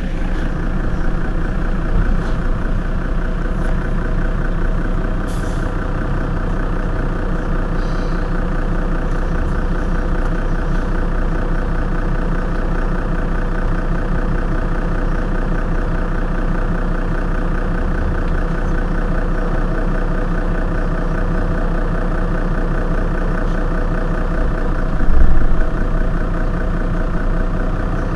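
Mercedes-Benz Citaro city bus's rear engine idling steadily while the bus stands at a stop. About 25 seconds in, a brief low thump.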